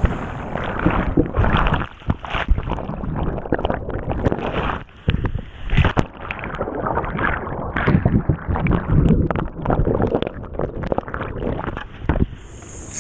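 Whitewater rushing and splashing around a kayak, surging and dropping irregularly, with a brief lull about five seconds in.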